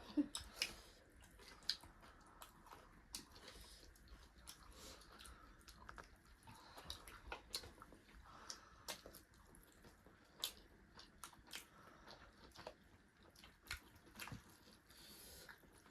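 Close, wet eating sounds of people chewing and biting food, with many short, soft clicks and smacks spread irregularly throughout.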